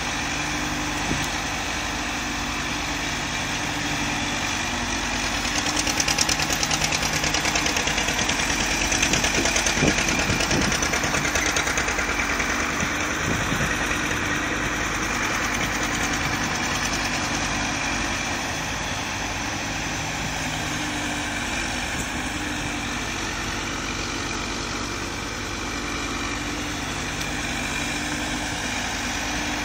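John Deere 310D backhoe loader's four-cylinder diesel engine idling steadily, louder for a stretch from about six seconds in until about twelve seconds in.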